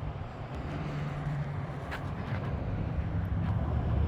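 Low rumble of an engine in the distance, growing slowly louder.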